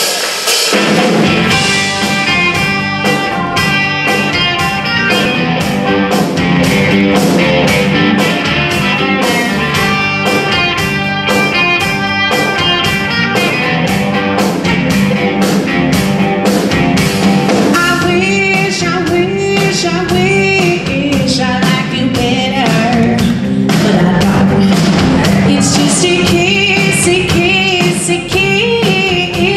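Live blues-rock band playing loudly: electric guitar, bass and a steady drum-kit beat, with sung lead vocals that come in strongly partway through.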